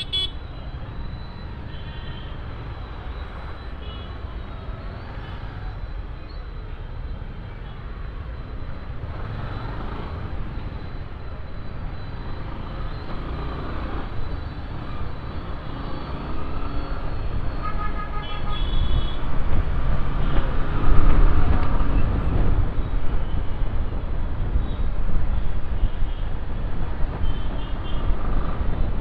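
Busy town road traffic heard from a moving motorcycle: a steady engine and road rumble that grows louder in the second half as the ride picks up, with a vehicle horn honking briefly about two-thirds of the way through and a few fainter toots.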